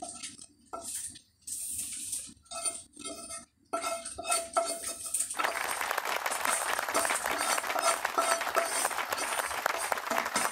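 Wooden spatula scraping and knocking against a nonstick frying pan as toasted garlic is scraped out of it, in short irregular strokes. About five seconds in, a steady hiss takes over.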